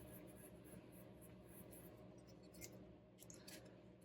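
Faint, irregular scratchy rubbing of an ink applicator working distress ink onto a sheet of paper.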